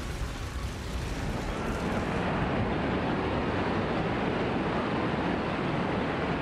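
Steady rushing, rumbling noise that swells over the first two seconds and then holds.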